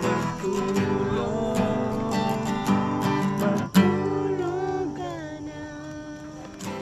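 Acoustic guitar strummed in chords, with a voice singing a melody over it.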